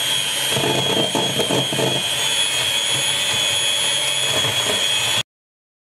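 Electric hand whisk running steadily in a bowl of chocolate cake batter, a high motor whine over a low hum. It cuts off suddenly near the end.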